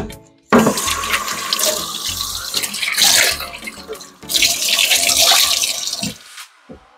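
Tap water running and splashing into a sink. It starts about half a second in, dips briefly near the middle, and is shut off about a second before the end.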